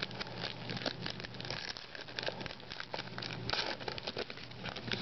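Crinkling and tearing of a plastic-foil trading card pack wrapper being opened by hand, a stream of irregular crackles, over a steady low hum.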